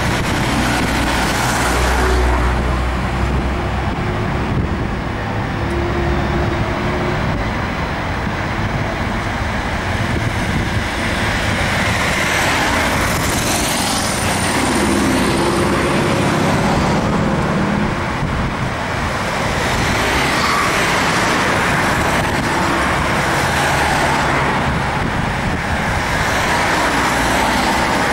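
City road traffic: car engines running and cars moving past, a steady traffic noise with no single sound standing out.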